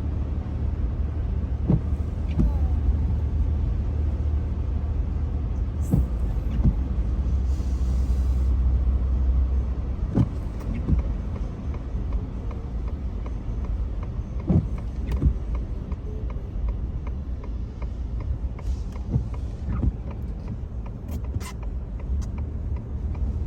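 Car cabin noise while driving: a steady low engine and road rumble with scattered small knocks and clicks. The rumble eases about ten seconds in.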